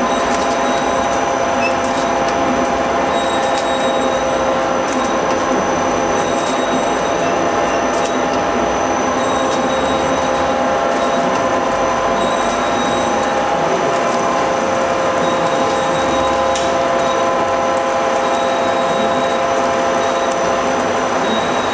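Horizontal flow-wrap packaging machine running: a steady mechanical whir with several steady whining tones and occasional sharp clicks.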